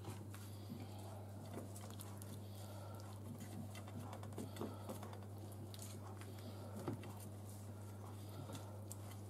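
Faint, scattered soft taps and rustles of raw prawns being laid by hand in a glass baking dish, one a little sharper about seven seconds in, over a steady low hum.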